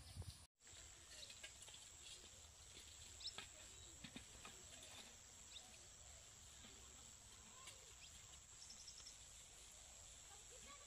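Near silence: faint outdoor ambience with a steady hiss. The sound drops out briefly about half a second in, and there are a few faint clicks and a short, fast, high trill near the end.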